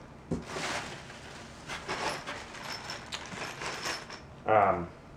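Handling noise as the horn's hardware and gaskets are moved about: rustling and scraping, with a sharp knock about a third of a second in. A brief voiced sound near the end is the loudest part.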